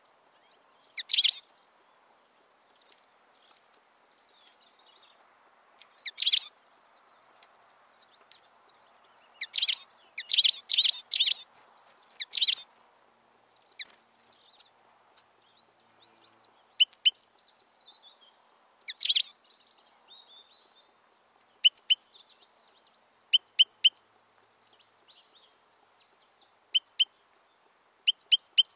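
European goldfinch calling: short, high twittering notes in scattered bursts, with a quick run of them about ten seconds in and clear pips in twos and threes later on.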